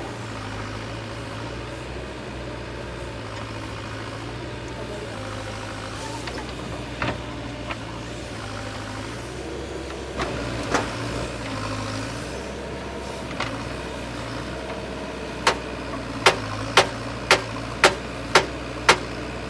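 A steady low engine hum. In the last four seconds, sharp clicks come about twice a second.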